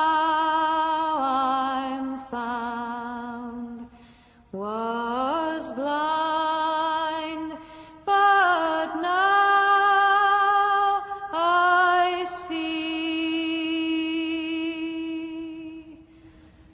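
Slow background music: a singing voice holding long notes with vibrato, in phrases broken by short pauses about four and eight seconds in.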